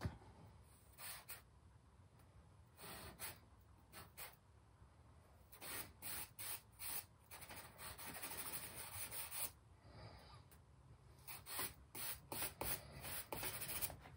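Compressed charcoal stick scratching and rubbing across newsprint in short, faint strokes as shadows are shaded in, with a denser run of strokes about eight to nine and a half seconds in.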